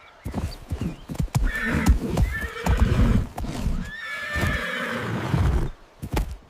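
Hoofbeats of a herd thudding and clattering, with horse-like whinnies about two seconds in and again past the middle.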